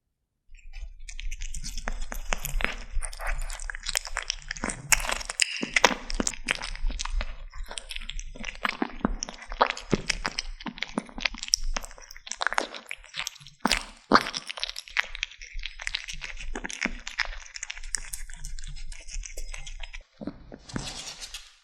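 Kittens chewing and crunching on a large chicken drumstick: dense, irregular wet crunches and clicks of teeth on meat.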